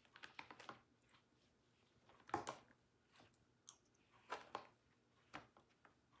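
Eating sounds: an orange plastic spoon clicking and scraping against a clear plastic cake container, with mouth sounds of eating a soft slice of cake. Short clicks come in a quick cluster at the start, a louder one a little over two seconds in, and another cluster about four and a half seconds in.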